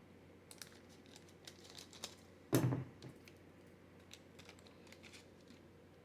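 Trading cards being handled and flicked through one by one: light clicks and rustles, with one louder short thump about two and a half seconds in.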